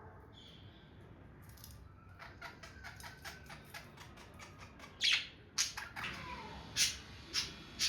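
Pet budgerigars chattering: a rapid run of short high chirps, with several louder squawks in the second half.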